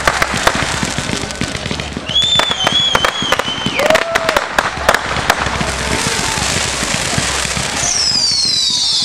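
Fireworks going off: rapid sharp bangs and crackling, with whistling shells. A warbling whistle sounds about two seconds in, and falling whistles come near the end.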